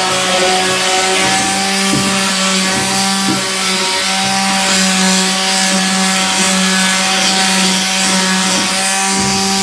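Electric sander running steadily against cedar wood, a constant motor hum under a gritty sanding hiss.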